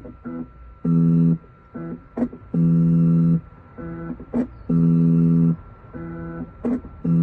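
Automatic key machine's stepper motors buzzing in repeated steady-pitched runs, some long and some short, with small clicks between, as the probe traces the cuts of a worn Chevy flip key blade to decode it.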